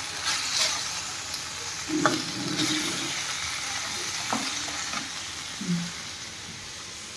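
Macaroni in tomato sauce sizzling in a steel kadhai while a slotted steel spatula stirs it, scraping and clicking against the pan a couple of times.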